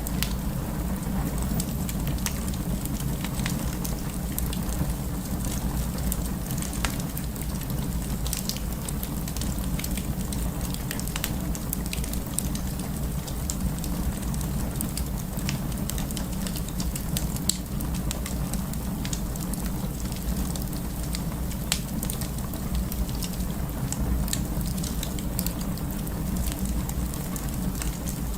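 Wood fire burning in a fireplace: a steady low rumble of flames with many scattered sharp crackles and pops from the burning wood.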